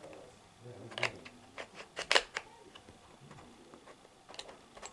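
Sharp plastic clicks and taps from handling a hard drive's power adapter and its interchangeable plug heads, with several close together about two seconds in and a couple more near the end.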